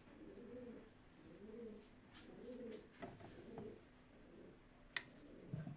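A bird's faint, soft cooing call, low and smooth, repeated about once a second, with a single sharp click about five seconds in.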